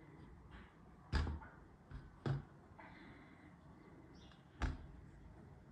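Kinetic sand being handled in a stainless steel bowl and packed into a drinking glass: a soft rustle of sand broken by three sharp knocks, about a second, two and a quarter seconds and four and a half seconds in, as the glass and hand meet the hard bowl.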